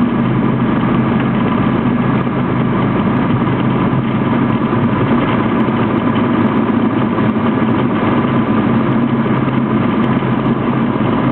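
Cessna T182T Skylane's turbocharged Lycoming six-cylinder engine running with a steady, even drone.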